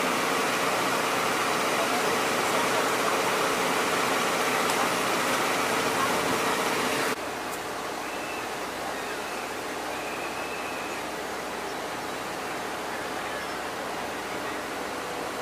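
Steady rushing hum of a parked NYPD mobile command center truck running, with a faint steady drone under it. About seven seconds in it cuts off suddenly to a quieter, steady background hum.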